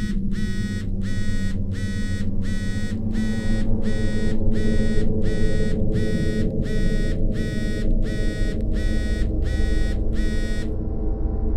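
Smartphone signalling an incoming call: a short buzzing tone repeated about every 0.7 s, stopping near the end, over a low steady drone.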